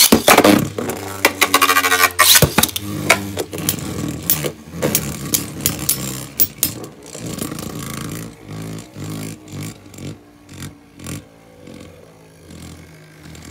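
Two Beyblade Burst spinning tops, a Spriggan and a Valkyrie, are launched together into a clear plastic stadium with a sudden loud rip. They then spin with a steady hum, clacking sharply against each other and the bowl wall many times. The sound slowly fades as they lose spin.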